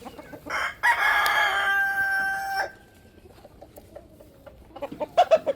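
A rooster crowing once, a single call of about two seconds that ends on a steady held note. A few short clucks follow near the end.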